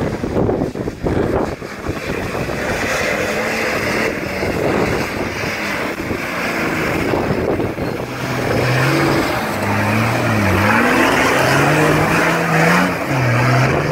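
Nissan Patrol GR Y60 on 40-inch tyres climbing through deep mud ruts: its engine revs hard, rising and falling in pitch, over a heavy hiss of spinning tyres and spraying mud. Wind buffets the microphone in the first couple of seconds.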